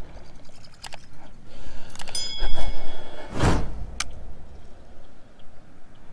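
A fishing rod swishing through a cast about three and a half seconds in, with clicks from a baitcasting reel around it. Wind rumbles on the microphone.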